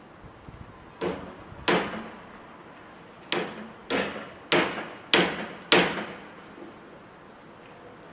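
A series of seven loud bangs as waste is thrown into the metal load bay of a panel van, each with a short ringing tail. Two come about a second in, then five more follow in a steady run about half a second apart.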